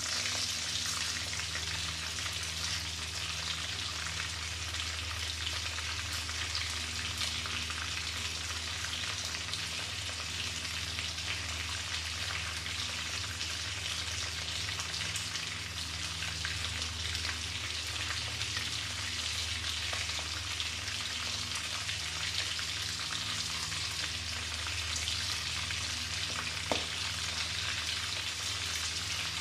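Coated prawns deep-frying in hot oil in a wok: a steady sizzle and crackle of bubbling oil, with a low steady hum underneath and a single click near the end.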